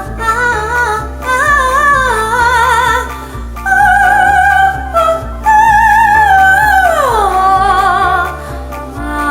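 A female voice sings high, operatic-style held notes with wide vibrato over a repeating bass accompaniment. A long held note slides down about seven seconds in.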